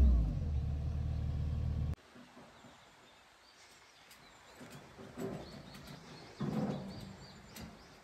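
Kobelco mini excavator's diesel engine running close by, its revs dropping at the start. About two seconds in it gives way abruptly to quiet outdoor background with faint bird calls and a couple of short, louder sounds.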